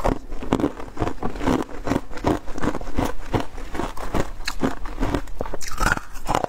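Close-up crunching of ice being chewed, in rapid, irregular crunches several times a second.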